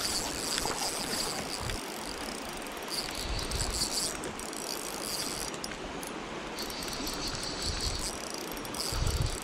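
Shimano Sephia Ci4+ spinning reel ticking and whirring in short spells while a hooked chub is played, over the steady rush of river current.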